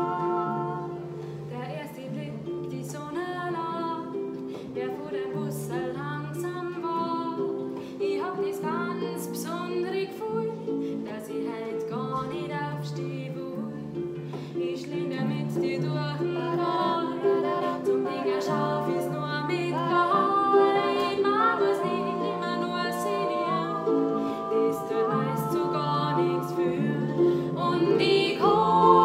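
Harp playing plucked chords and broken-chord figures, with two women's voices singing over it near the end.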